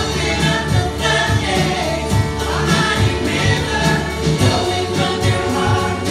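Live worship band playing a contemporary Christian song: singing over acoustic and electric guitars, bass and keyboard, with a steady beat.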